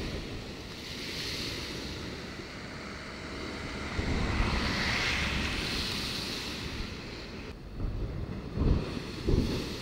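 Rough sea surf breaking against a sea wall and washing back, with wind buffeting the microphone. The surf swells to its loudest about halfway through, and a few low gust thumps hit the microphone near the end.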